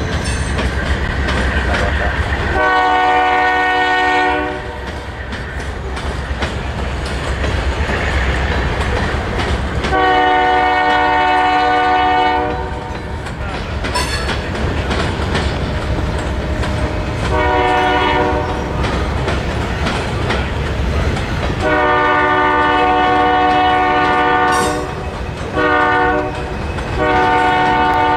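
A diesel freight locomotive's air horn sounds a series of blasts over the steady rumble and clatter of the passing train: two long, a short, a long one, then a short and a long. The first four follow the long-long-short-long pattern sounded for a grade crossing.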